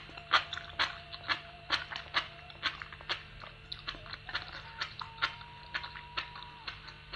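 A person chewing food close to the microphone, with a steady run of sharp, wet mouth clicks and smacks about two a second.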